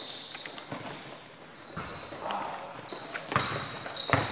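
Indoor basketball game in play: basketball bouncing and sneakers squeaking on the court in short high squeals, with a couple of sharper thuds near the end and players' voices calling out in the background.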